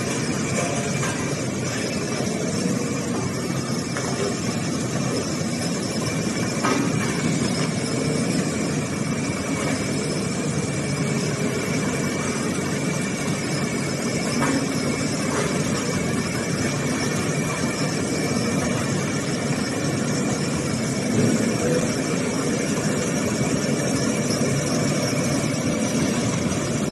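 Road roller's engine running steadily, with a constant high whine over the engine noise.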